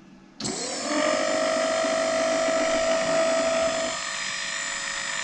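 Compact 12 V ducted underwater thruster motor running in air. It spins up about half a second in, its pitch rising quickly and settling into a steady high whine, and its tone shifts slightly near the end.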